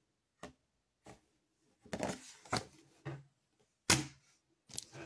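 Irregular light clicks and taps of small objects being handled on a tabletop, several in a row, the loudest about four seconds in.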